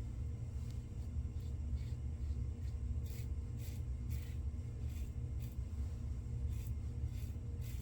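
Razor blade scraping across lathered stubble in short, quick strokes, growing more frequent about three seconds in, over a steady low hum.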